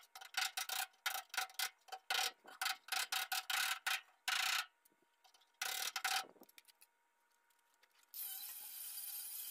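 Quick repeated scraping strokes of a hand tool worked against the rusty edge of a car body's sheet metal, about three or four strokes a second, stopping about six seconds in.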